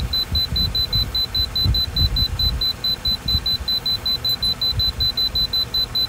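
Control panel of a Joy Tutus 12 V compressor car fridge beeping rapidly and evenly, about six high short beeps a second, as the temperature button is held down and the setpoint steps lower.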